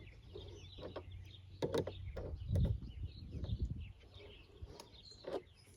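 Small birds chirping steadily in the background, over a few sharp clicks and dull knocks of metal lock parts being handled as the lock nut is tightened.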